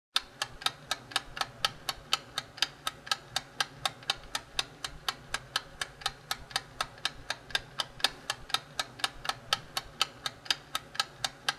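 Steady, even ticking of an intro soundtrack, about four ticks a second, over a low steady hum.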